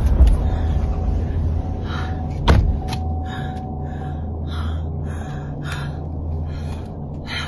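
Steady low rumble inside a car, with a woman breathing hard in short gasps and a sharp click about two and a half seconds in.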